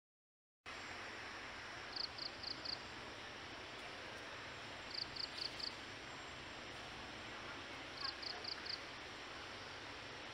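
A high, clipped four-note animal call, repeated three times about three seconds apart, over a steady outdoor hiss. The sound drops out completely for the first half second.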